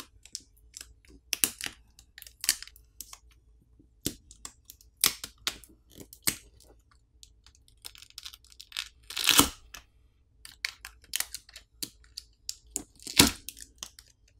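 Adhesive pull tabs being peeled from under a smartphone's dual-cell battery and the battery pried off its adhesive: irregular crackling and clicking, a rasping tear about eight to nine seconds in, and sharp cracks about nine and thirteen seconds in.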